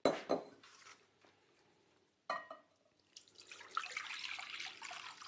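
Warm milk poured from a stainless steel saucepan into a glass bowl, a steady splashing trickle through the last two seconds or so. A few light clinks come before it, near the start and about two seconds in.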